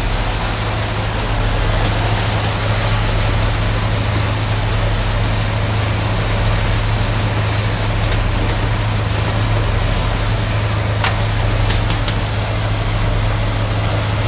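Boat's engine running steadily underway, a deep even drone under a broad rush of water and wind. A few light clicks about eleven seconds in.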